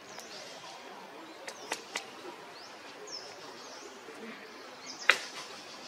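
Outdoor ambience with small birds chirping in short high calls now and then. A few sharp clicks sound about a second and a half to two seconds in, and a much louder single sharp click comes about five seconds in.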